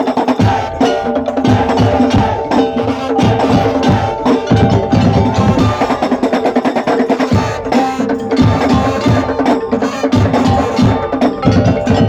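Madurese ul-daul percussion music: bamboo slit drums, drums and tuned metal percussion playing a dense, driving rhythm with ringing pitched notes over it.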